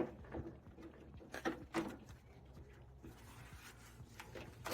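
A few light knocks and scraping rubs of hand work on a car door: old rubber window seals being pulled out with needle-nose pliers.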